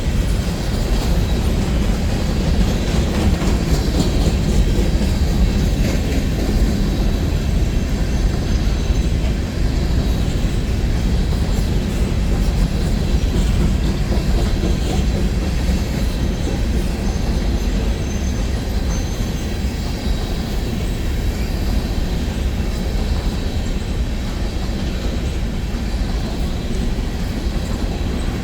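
Empty coal train's hopper cars rolling past, a steady rumble of steel wheels on the rails with a faint high-pitched wheel squeal over it.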